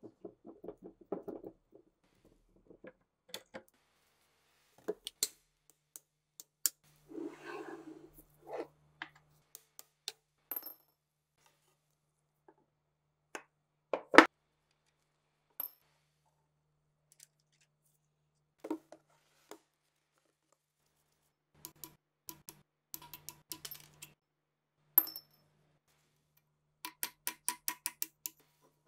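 Rusty steel machine-gun parts being handled: scattered metal clinks and knocks as parts are set down and moved, with one loud knock about halfway through. Near the end comes a quick run of light metallic ticks.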